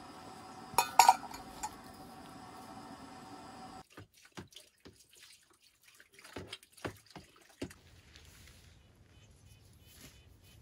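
Washing up at a camp table: water splashing and dripping in a wash basin, with dishes knocking and clattering. The loudest knocks come about a second in. After that come scattered, quieter clicks.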